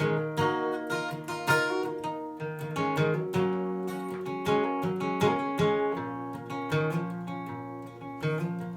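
Acoustic guitar playing an instrumental passage between verses, strummed and picked chords ringing in a steady rhythm.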